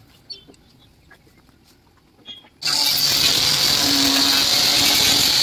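A few faint clicks, then about two and a half seconds in a loud workshop machine starts abruptly and runs steadily with a high whine over a rushing noise.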